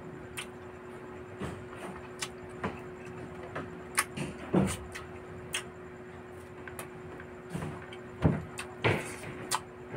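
A person chewing barbecued meat and rice eaten by hand, with scattered wet mouth clicks and lip smacks and a few heavier chews about four and a half and eight seconds in, over a steady low hum.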